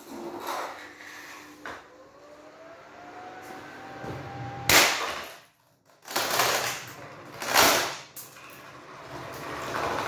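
Onix box fan's motor spinning up, a hum rising in pitch and then levelling off. About five seconds in a golf club strikes the fan, the loudest sound, and this one hit breaks it; two more loud bursts of clatter follow.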